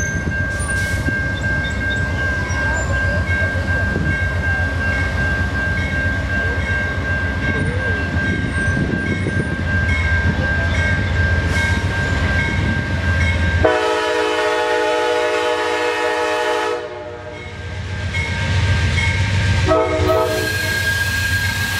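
Amtrak P42DC diesel locomotive approaching, with a low rumble and a steady high ringing tone at first. About fourteen seconds in, its air horn sounds one long chord-like blast of about three seconds. A second blast starts near the end.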